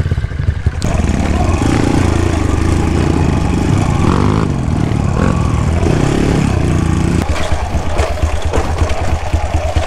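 Kawasaki KLX dirt bike's single-cylinder engine running. It gets louder with shifting pitch from about a second in, as if revved or ridden under load, then drops back to a steady low putter about seven seconds in.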